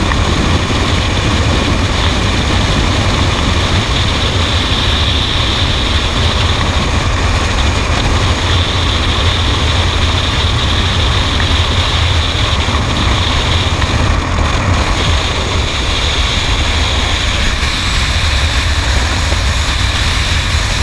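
Skydiving freefall wind rushing over the camera's microphone: a steady, loud rushing noise.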